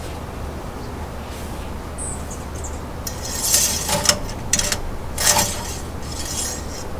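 Handling noises at an engine's oil filler: a plastic oil jug, a funnel and a shop towel being handled, making several short rustles, scrapes and clinks in the second half, over a steady low hum.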